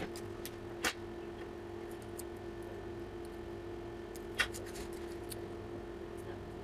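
A steady hum with two sharp clicks, about a second in and just past the middle, and a few faint ticks between them.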